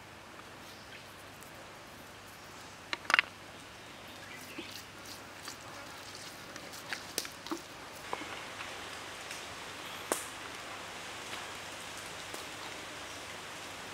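Hands rubbing salt and seasoning into a raw chicken leg on a wooden chopping board: soft scattered ticks, pats and rubbing. Two sharp clicks about three seconds in, and another about ten seconds in, stand out over a steady background hiss.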